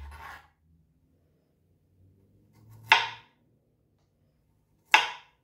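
Chef's knife chopping through broccoli and striking a bamboo cutting board: two sharp knocks about two seconds apart.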